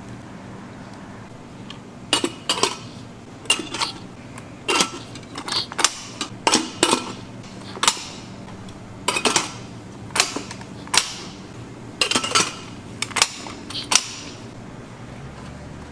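Irregular sharp knocks and clinks of kitchen utensils and dishes being handled, starting about two seconds in and stopping shortly before the end, over a steady low hum.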